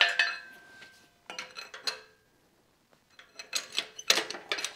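Loose metal clinking and clattering in a few short bursts, some strikes leaving a brief ring, with a pause in the middle.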